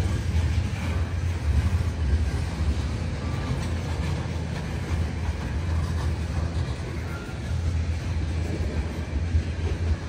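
CN manifest freight train's cars rolling past on the track: a steady low rumble of steel wheels on rail.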